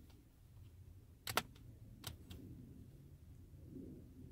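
A few sharp clicks from working the laptop's touchpad buttons or keys: a quick double click about a second in, then two single clicks about two seconds in, over a faint low hum.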